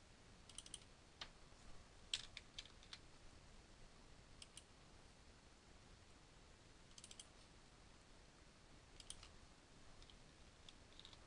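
Faint, scattered clicks of a computer mouse, some in quick double or triple clicks, in small clusters every second or few over near silence.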